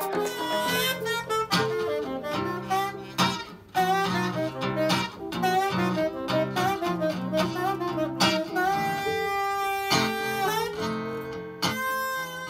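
Small live jazz band playing: saxophone melody over acoustic guitar chords, the saxophone holding long notes near the end.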